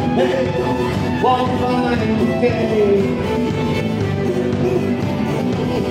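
Live folk band music, with a sliding lead melody line over a full band accompaniment.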